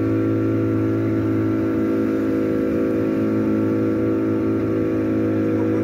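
A motorboat's engine running at a steady cruising speed, a constant drone that holds one pitch.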